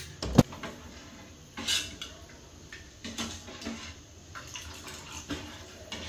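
A sharp knock about half a second in, then a steel ladle clinking and scraping against a steel pot. The ladle is stirring thick spinach purée while water is poured in from a steel mixer-grinder jar.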